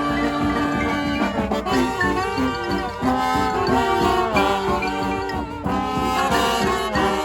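Brass band playing a dirge: horns holding long notes, with several notes sliding down in pitch.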